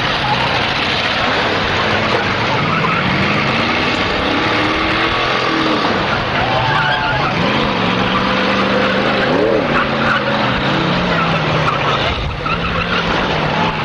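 Several demolition derby cars' engines revving up and down at once, their pitches rising and falling over a dense, steady wash of noise.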